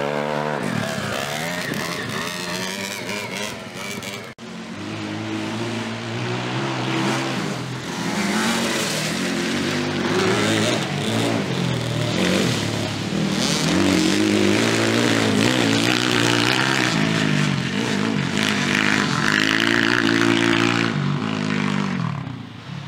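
Dirt bike engine revving, its pitch climbing and dropping over and over as the throttle is worked and the gears change. There is a sudden break about four seconds in.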